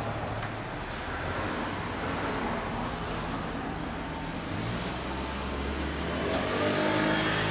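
A motorcycle engine idling, then revving up near the end.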